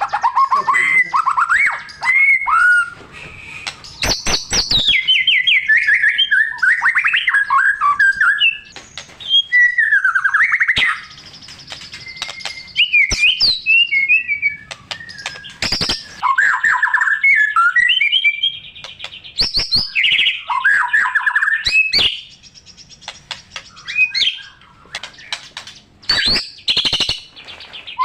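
White-rumped shama (murai batu) singing a loud, varied song in a full 'gacor' state: rapid trills, rising and falling whistles and buzzy phrases rich in mimicked calls, broken by short pauses and several sharp clicks.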